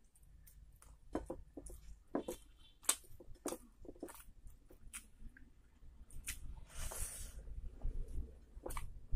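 Someone chewing a mouthful of rice and curry, eaten by hand: irregular wet smacks and clicks from the mouth, with squishing as fingers mix rice and curry on the plate. A brief hissing rustle about seven seconds in.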